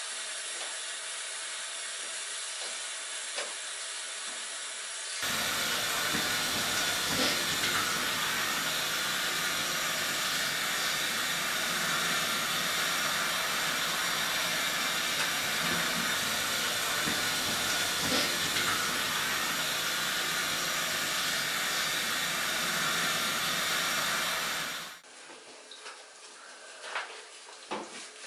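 Handheld shower head spraying water onto a kitten and a tiled shower floor: a steady hiss that gets louder about five seconds in and cuts off a few seconds before the end, leaving faint rubbing.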